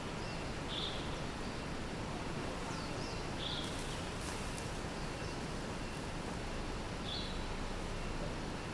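Steady city street ambience, a constant wash of distant traffic and city noise, with a few short high bird chirps: about a second in, around the middle, and again near the end.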